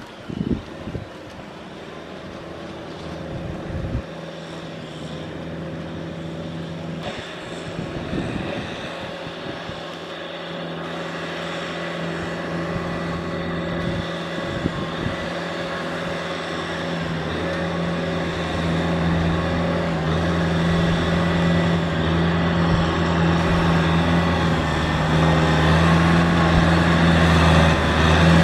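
Kubota M6040 tractor's diesel engine running steadily while it hauls a loaded trailer of rice sacks, growing gradually louder as it comes closer.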